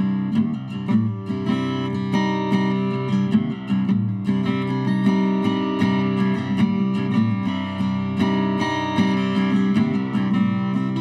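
Guitar music: rapid plucked and strummed notes over steady, held low tones.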